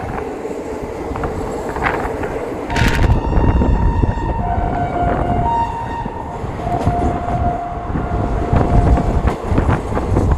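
Moving passenger train with a low rumble and scattered rail clicks. From about three seconds in, a train horn sounds in several long blasts that switch between two pitches.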